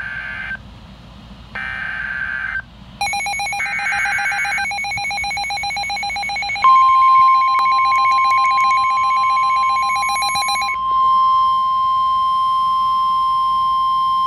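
NOAA Weather Radio Emergency Alert System warning signal. It opens with three short, buzzy SAME digital header bursts about a second apart. A rapidly pulsing, ringing alarm tone comes in about three seconds in, and a steady 1050 Hz warning alarm tone starts about halfway through and holds on once the pulsing stops, announcing a severe thunderstorm warning.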